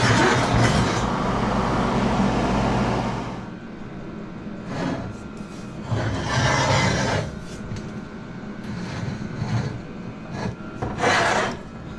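Power grinder smoothing the welded edges of a steel box: one long grinding pass for about the first three and a half seconds, then several shorter passes.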